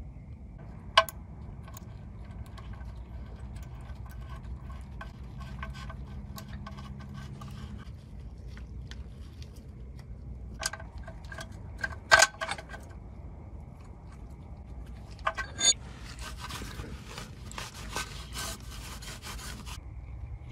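Hand-work clatter during an oil change: a few sharp clicks and knocks of metal and plastic, then several seconds of scraping, rubbing noise near the end.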